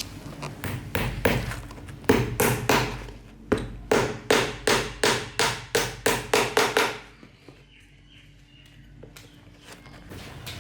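Hammering: a steady run of some twenty sharp blows, about three a second, with a short break about three and a half seconds in, stopping about seven seconds in.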